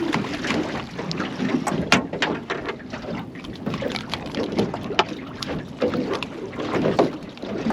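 Irregular knocks and clicks aboard a small fishing boat over a steady rush of wind and water.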